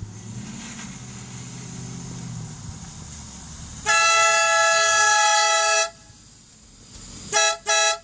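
SL-1020 electric train horn, wired into the truck's factory horn circuit. It gives one long, loud blast of about two seconds, then two short toots near the end.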